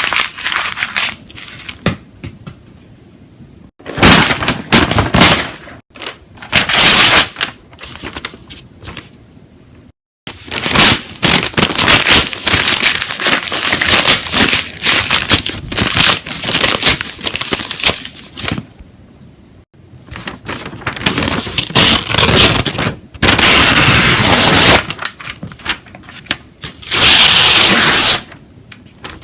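Paper being crumpled, ripped and snapped, in a run of crackling, tearing bursts separated by short quiet pauses. The longest stretch is a steady crackle in the middle, and the loudest bursts come near the end.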